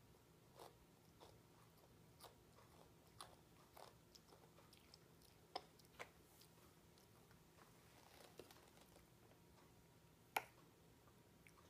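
Faint sounds of a toddler chewing, with scattered small clicks and one sharp knock near the end.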